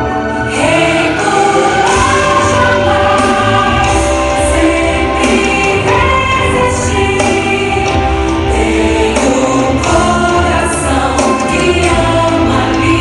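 A choir of mixed male and female voices singing a song with instrumental backing: steady bass and regular percussion strikes.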